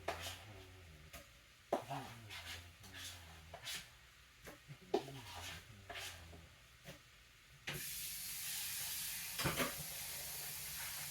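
Kitchen clatter of utensils and cookware, a few light knocks and clicks. About eight seconds in, a steady sizzling hiss starts suddenly, like food frying in a hot pan on the stove.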